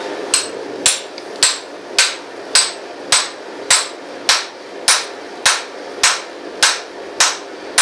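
Hand hammer striking a steel starting drift driven into the punched eye of a hot steel axe billet on a swage block, opening up the eye. About fourteen steady blows, roughly two a second, each with a short metallic ring.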